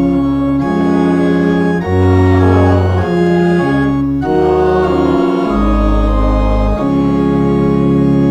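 Church organ playing a slow series of sustained chords over deep pedal bass notes, the chord changing about every second.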